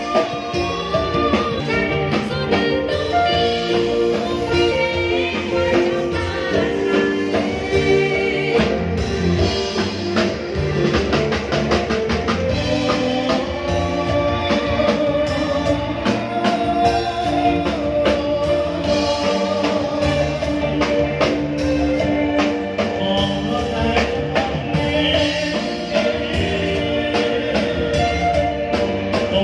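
Live band music played through a PA: electronic keyboards over a steady drum-kit beat, with a voice singing.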